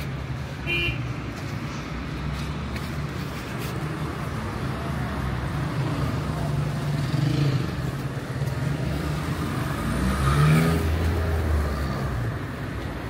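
City road traffic: cars driving along the street in a steady hum of engines and tyres. About ten seconds in, one vehicle passes close and louder, its engine note rising as it accelerates.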